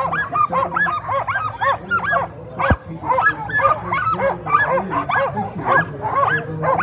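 A harnessed team of pointer-cross sprint sled dogs barking and yipping in quick, overlapping calls, several a second without pause: the dogs are excited and eager to run.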